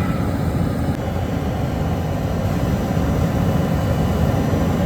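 Diesel burner firing into a carbonization furnace, a steady, loud, low rumbling roar of flame and burner fan.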